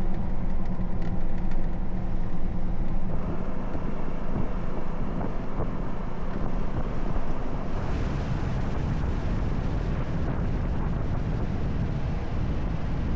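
Jeep Gladiator driving along a paved road: steady engine and tyre noise with wind rushing over the microphone.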